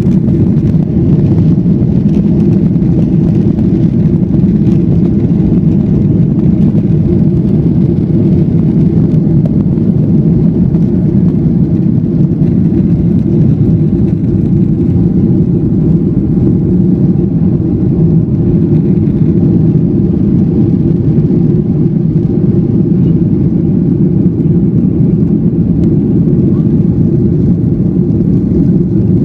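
Cabin noise of a Boeing 737-900ER's CFM56-7B turbofan engines at takeoff thrust, heard from a window seat over the wing: a loud, steady, deep rumble that holds unchanged through the takeoff roll, liftoff and initial climb.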